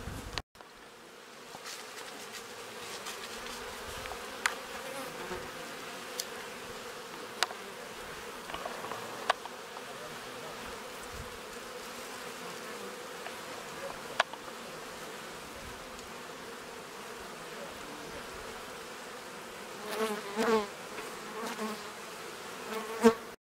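Honeybees buzzing at the hive entrances: a steady hum of a busy colony flying in and out, with a few bees buzzing loudly past close by about twenty seconds in. A few faint clicks, and a sharp click just before it cuts off.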